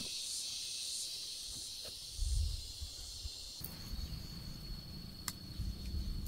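Insects chirring in a high, pulsing chorus. About two-thirds of the way through, the sound changes abruptly to a steadier single high tone, with low rumbling beneath.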